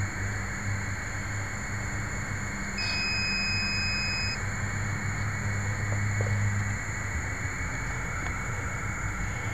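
Muffled steady electrical hum and hiss picked up by the FPV video transmitter's microphone buried inside the plane's fuselage. A single high beep about three seconds in lasts about a second and a half.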